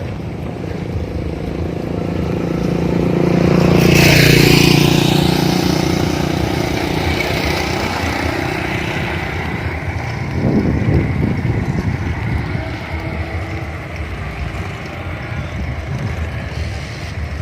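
A motor vehicle passing close by, loudest about four seconds in, its engine pitch dropping as it goes away, with engine noise continuing afterwards.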